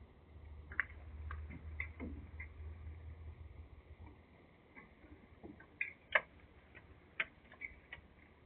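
Faint, irregular clicks and ticks, with a low hum underneath that dies away about halfway through.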